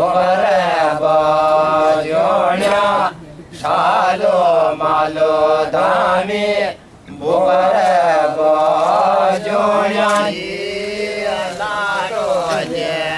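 Devotional chanting by voice in a steady, repeating melodic line, sung in phrases of about three to four seconds with short breaks between them.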